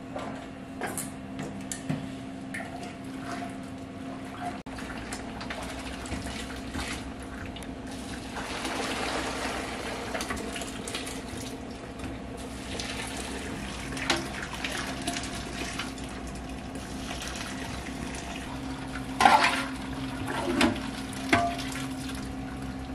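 Hot dashi stock being ladled out of a pot and poured through a cloth strainer, with liquid splashing and running, and the metal ladle knocking against the pot several times near the end. A steady kitchen hum runs underneath.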